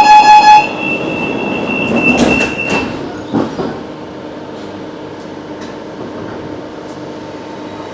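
Renfe series 446 electric commuter train: a rapid electronic beeping ends about half a second in. A few knocks follow between two and four seconds in, over a high steady tone, and then the train's steady electrical hum.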